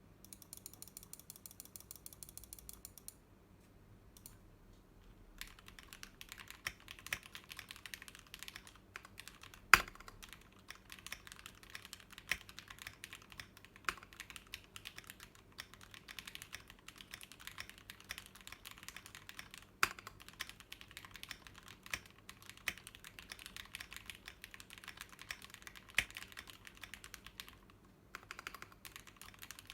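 Typing on a Blade60 60% mechanical keyboard with lubed Gateron Yellow KS-3 linear switches, aluminium plate, two-layer tape mod and PBT keycaps: a dense stream of keystrokes with a few louder single strokes. A brief rapid even ticking and a short pause come first, and the typing starts about five seconds in and stops briefly near the end.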